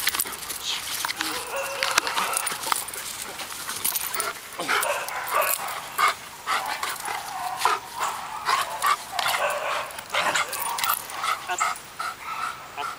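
Belgian Malinois barking and whining in excited, irregular bursts while playing tug.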